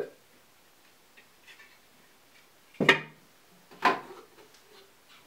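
Two sharp plastic clacks about a second apart, about halfway through, from the Ryobi 9-inch band saw's hinged wheel-cover doors being unlatched and opened.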